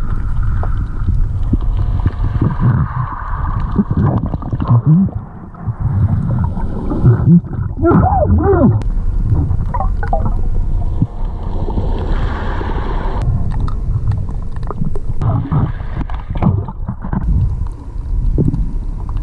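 Underwater gurgling and bubbling over a heavy low rumble of surging water, heard through a submerged camera's microphone.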